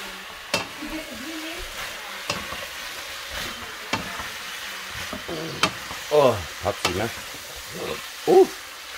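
Bok choy and sliced meat sizzling as they are stir-fried in a nonstick pan on a gas burner, with a wooden spoon knocking and scraping against the pan every second or so. A few short vocal cries, the loudest sounds here, break in around six and eight seconds in.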